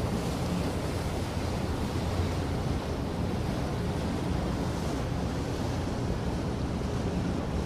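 Harbor ambience sound effect: a steady wash of water and wind with a faint low hum underneath.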